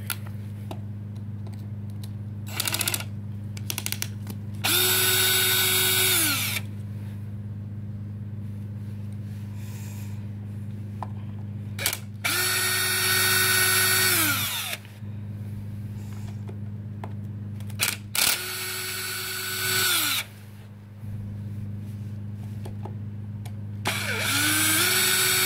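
Electric driver backing out the screws of an X-Maxx RC truck's rear differential cover. There are four runs of about two seconds each; each spins up, holds a steady whine and winds down, with a few small clicks between runs, over a steady low hum.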